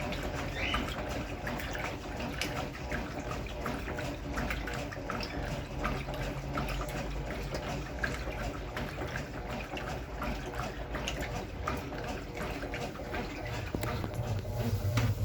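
Brastemp Clean 6kg washing machine filling, water running and splashing steadily into the drum, with a low hum that grows stronger near the end.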